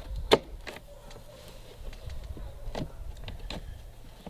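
Clicks and knocks of a gas RC boat engine and its mounting hardware being handled and set down in the boat's hull, with one sharp knock about a third of a second in and a few lighter ones later.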